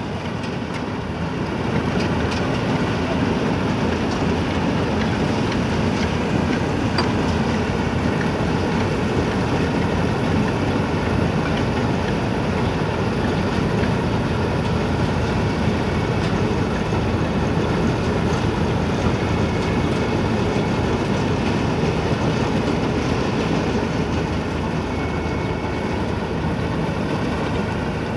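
Rice combine harvester running close by as it moves along and cuts standing rice: a steady drone of the diesel engine and threshing machinery, a little louder about two seconds in.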